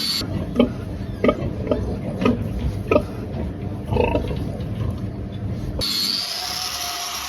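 Pigs grunting: six or seven short grunts about half a second to a second apart over a low rumble. Near the end the grunts give way to a steady whining noise.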